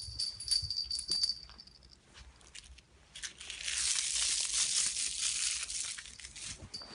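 Crumpled aluminium-foil ball crinkling loudly for about three seconds from around the middle, as it is handled at a kitten's mouth. Before that come light clicks and rattles under a thin, high, steady tone.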